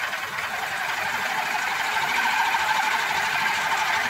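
Electric drill running steadily, turning a crank that drives a mini bicycle pump's piston up and down to inflate a motorbike tyre: a continuous motor whine with the pump's rapid mechanical clatter.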